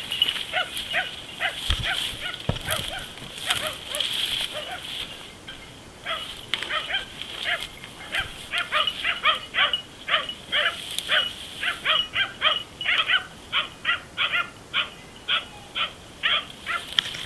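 Hunting dachshunds barking at a wild boar, baying it in thick cover. The barks come irregularly at first, then settle after a few seconds into a steady run of about three barks a second.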